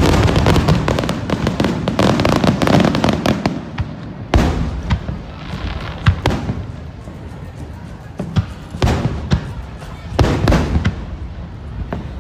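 Aerial fireworks bursting: a dense rapid crackling volley for the first four seconds, then a series of separate loud bangs.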